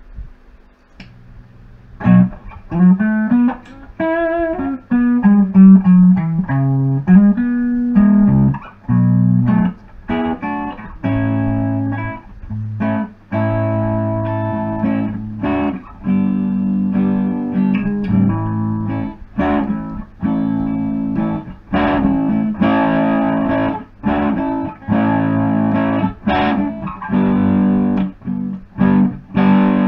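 Electric guitar played through a Big White Monkey Mark 1 'Chimp', a hand-wired 5-watt Class A tube amp head running two EL84 and three ECC83 tubes. The playing starts about two seconds in with single notes that waver in pitch, then moves into chords and short phrases with brief gaps between them.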